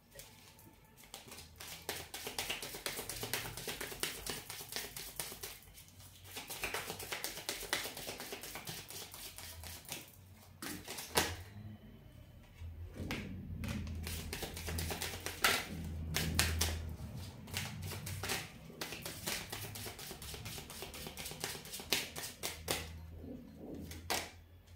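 A deck of oracle cards being shuffled by hand: long runs of rapid, crisp card clicks, broken by two short pauses.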